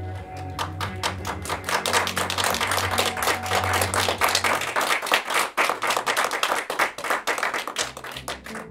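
Applause from hand clapping, beginning about half a second in and stopping just before the end. Under it, an ambient music drone fades out about halfway through.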